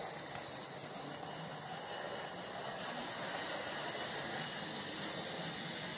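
Lionel 2029 2-6-4 toy steam locomotive and its cars running on three-rail tubular track, a steady whir and rumble of the motor and wheels.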